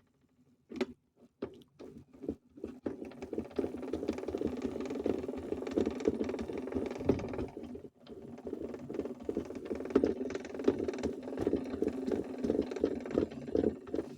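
Modified Zanussi toy washing machine running: its small motor hums and the drum rattles and clicks as it turns. It starts in a few short spurts, cuts out briefly about halfway, then runs steadily.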